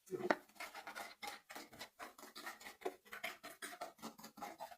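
Rapid, irregular scraping and clicking as cooked banana-heart pulp is worked and pressed in a sieve to strain out the syrup.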